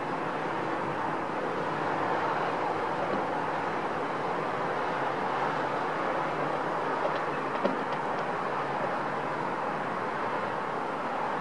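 Steady wash of distant city traffic heard from high up, with a couple of faint ticks about seven seconds in.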